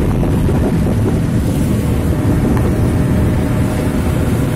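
Steady wind rush on the microphone and road noise from a moving vehicle on a wet road.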